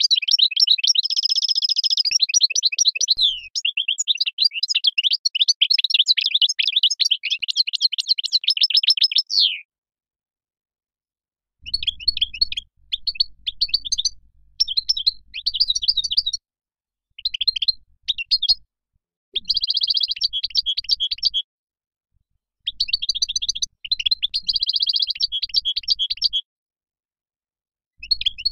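European goldfinch singing: a long, unbroken run of rapid twittering notes for about the first ten seconds, then, after a short silence, a string of shorter song phrases, each a second or few long, broken by brief silences.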